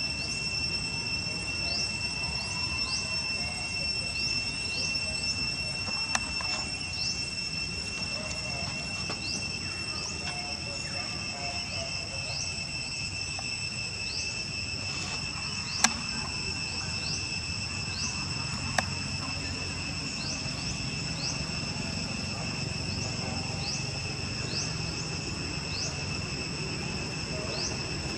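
Steady, high-pitched droning of insects, with short rising chirps repeating about once a second over it. A few sharp clicks stand out briefly.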